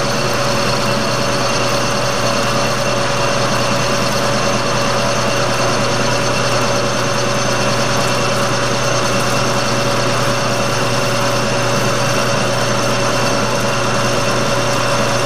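Metal lathe running steadily under power, its chuck spinning while the cutting tool takes a finishing pass on a part's outside diameter. It makes a constant hum with several steady tones over a hiss.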